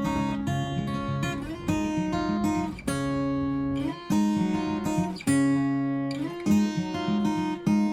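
Background music: acoustic guitar strumming and picking chords, changing every second or so.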